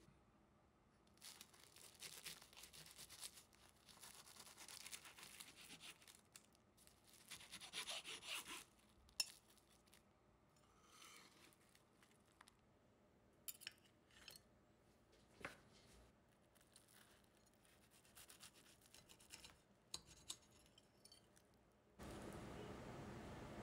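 Faint kitchen handling sounds: soft rustling and scraping for several seconds, then a few scattered light clicks and taps. Background music comes in near the end.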